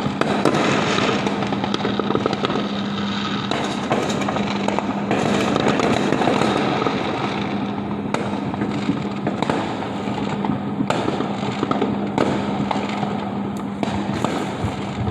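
Many fireworks and firecrackers going off at once: a dense, continuous crackle of pops and bangs with sharper reports scattered throughout, over a steady low hum.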